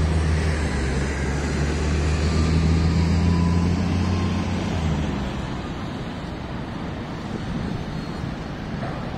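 Street traffic with a heavy vehicle's engine running close by, a low steady hum that fades out about five seconds in and leaves the general noise of traffic.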